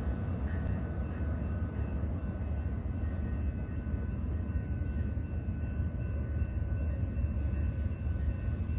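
Amtrak passenger train rolling steadily away from the platform after departure: a continuous low rumble of wheels on rail.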